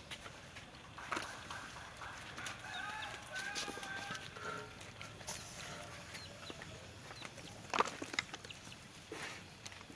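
Chickens clucking, with a few sharp clicks or knocks, the loudest about three quarters of the way through.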